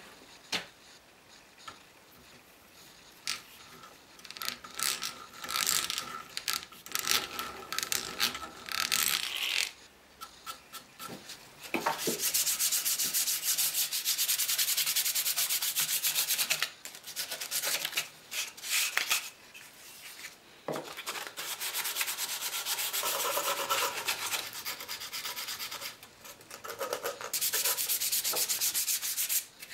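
Hand sanding of a small pine frame, rubbed back and forth against abrasive on a workbench: a dense rasping hiss in long runs of rapid strokes, with short pauses between runs. Shorter, scattered scraping strokes come first.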